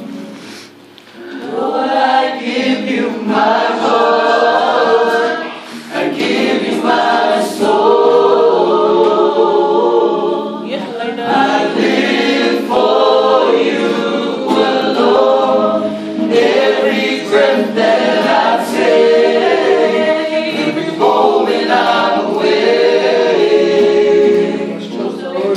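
A group of young men and women singing a song together, choir-style, in long sung phrases. The singing swells in about a second and a half in after a quieter moment.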